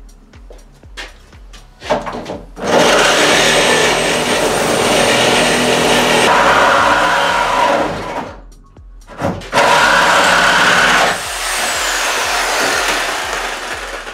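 Handheld power saw cutting through a car body's steel roof pillar: the last cut that frees the roof from the shell. Two long runs of cutting, a few seconds each, with a stop and a brief restart about eight to nine seconds in, then quieter cutting that tails off near the end.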